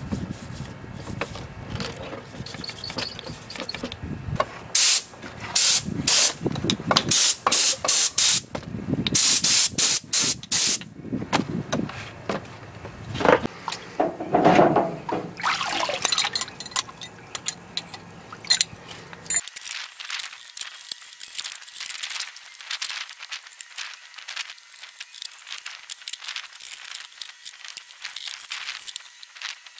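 A small hand brush scrubbing an engine piston, with quick strokes that are loudest in the first half. Hands splash in water about halfway through, and finer, quieter scratching follows.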